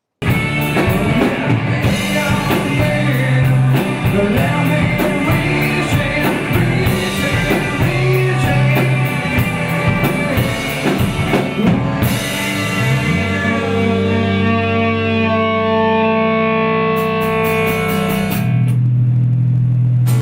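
Rock band music: guitar and drum kit playing a steady beat. About two-thirds of the way through the drums drop out, leaving long held chords.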